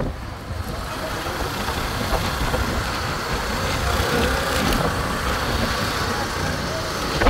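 Steady engine and road noise of a moving motorbike or scooter, with wind rumbling on the microphone.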